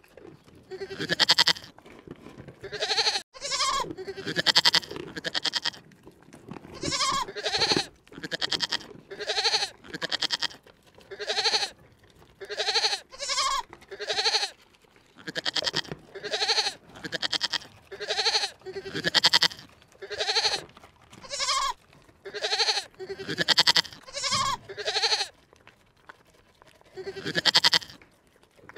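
Bleating calls from livestock, repeated about once a second, each call short and wavering in pitch, with a pause of about two seconds near the end.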